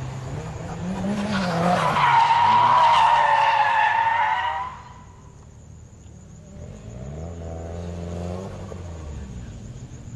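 Drifting cars' tyres squealing loudly for a few seconds over the rise and fall of their engines. The squeal then stops abruptly, leaving a quieter, more distant engine revving up and down.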